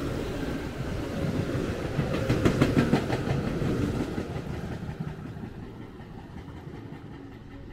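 A train running past on the railway line, its wheels clattering rapidly over the rail joints loudest about two to three seconds in, then the rumble fading away as it leaves.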